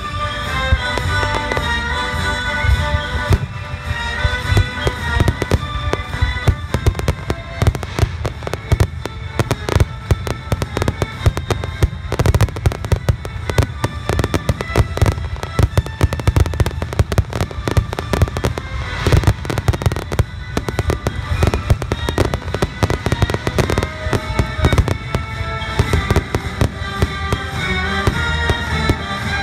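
Aerial firework shells bursting in a rapid, dense barrage of bangs and crackles, the closing volley of a fireworks display, with music playing throughout. The bangs come thickest from about a quarter of the way in until near the end, when the music is heard more clearly again.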